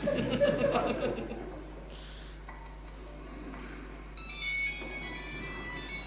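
Brief audience laughter in the first second, then a recorded violin performance played through the hall's speakers, with several high, steady notes from about four seconds in.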